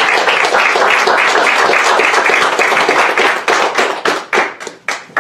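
A small audience applauding: many hands clapping together, thinning to a few scattered claps about four seconds in.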